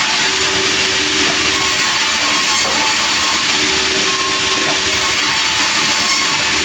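Sawmill running: a loud, steady hiss with a faint hum under it, unchanging throughout.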